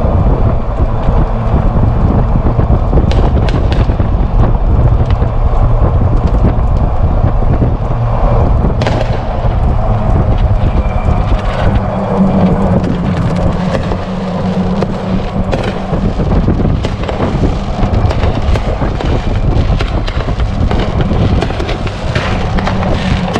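Steady wind rumble on the microphone of a moving open vehicle, with scattered pops and bangs of fireworks going off around the neighborhood.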